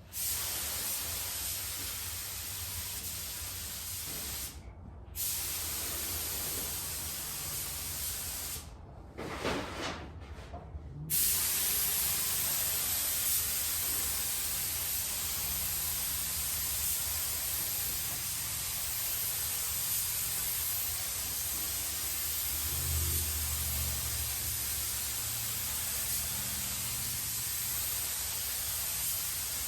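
Paint spray gun hissing as clear coat is laid on in passes, the spray stopping briefly about five seconds in and again for a couple of seconds near ten seconds, then running on steadily.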